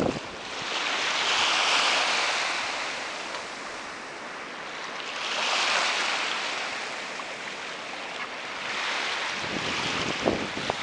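Small waves washing in over shallow water onto a sandy beach, swelling and fading three times, with wind on the microphone.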